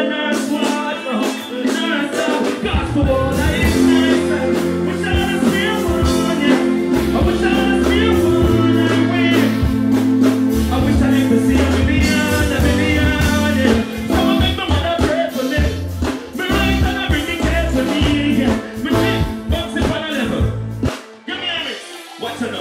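Live stage music through a PA system, with a male artist singing into a microphone over it. A deep bass line comes in about three seconds in and drops out shortly before the end.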